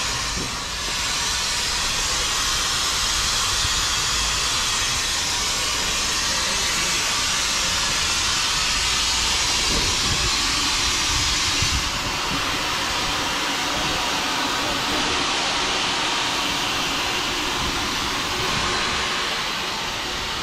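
A standing steam locomotive hissing out steam in a loud, steady hiss.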